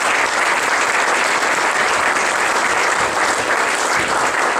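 A room full of people applauding steadily, a dense, even clapping that welcomes the lecturer to the lectern.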